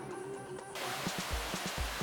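Guitar music, joined about a second in by the steady rush of water pouring through a flood-debris screen.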